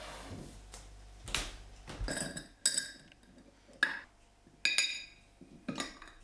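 Tableware being handled: several sharp clinks of glass or ceramic pieces knocking together, each ringing briefly, with softer rustling and handling between them.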